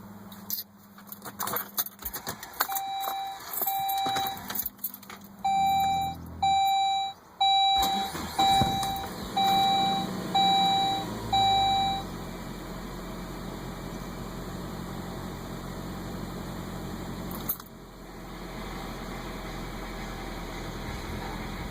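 Saab 9-5 with clicks and a warning chime beeping about every 0.7 s. About eight seconds in, the engine catches quickly and then idles steadily: a prompt start now that the injectors' bad spray patterns behind its hard starting have been dealt with.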